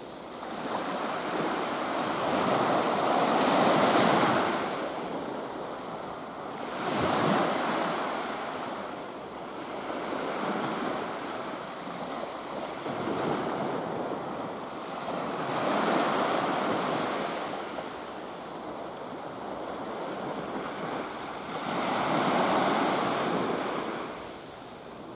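Small waves washing onto a sandy beach, the surf swelling and falling back every few seconds, with some wind buffeting the microphone.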